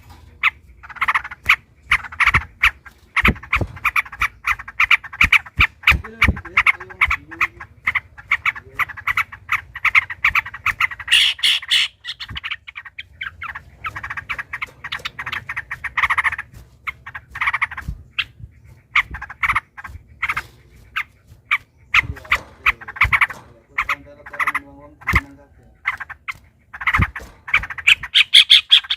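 Yellow-vented bulbuls (trucukan) singing against each other in long runs of fast, repeated chattering notes, broken by short pauses.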